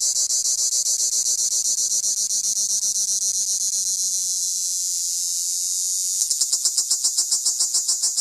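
Cicada singing at close range: a loud, high, rapidly pulsing buzz. It smooths into a steadier drone for a couple of seconds, then about six seconds in breaks back into stronger pulses.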